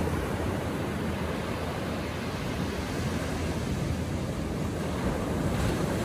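Atlantic Ocean surf washing onto the beach: a steady, continuous hiss and rumble of breaking waves that swells slightly near the end.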